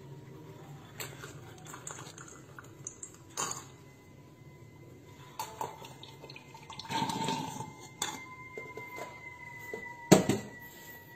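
A glass mug clinking and knocking against a metal kitchen tap and steel sink, a handful of sharp knocks with the loudest near the end, over a faint steady high tone.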